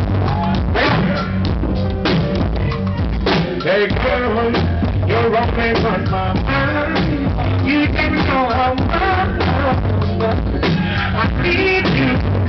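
Live reggae/dancehall band playing with heavy bass, drum kit and keyboards, a singer chanting into a microphone over it. The bass distorts the small camera's microphone.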